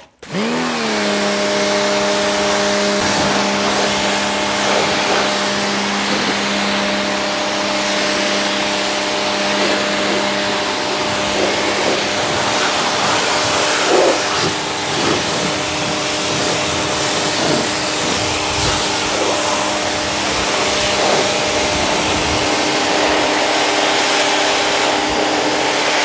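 Bosch AQT 125 pressure washer's 1500-watt electric motor spinning up near the start, then running steadily with a fairly noisy hum. Over it is the hiss of the high-pressure water jet spraying onto the car.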